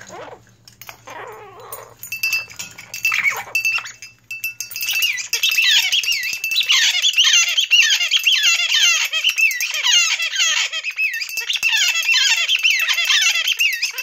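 Blue-crowned conure calling loudly: a fast, continuous run of short, shrill, falling squeaks and squawks, several a second, starting about four seconds in after a few seconds of softer sounds.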